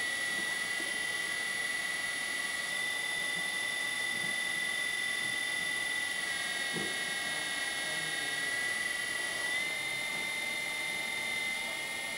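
Twin electric hydraulic pumps of a LESU 9150 RC excavator running with a steady high whine. The pitch shifts slightly a few times, about three, six and ten seconds in, as the boom and bucket are worked.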